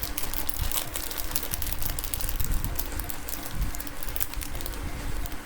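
Hands handling small plastic jewelry packaging: a rapid, irregular run of small clicks and crinkles.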